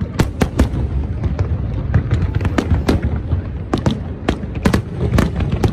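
Aerial fireworks display: a rapid, irregular run of sharp cracks and bangs from bursting shells, about a dozen in a few seconds, over a constant low rumble.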